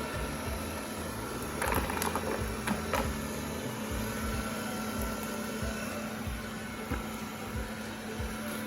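Xiaomi Mi Robot Vacuum Mop 2 Pro running, a steady motor hum with a few sharp clicks about two and three seconds in.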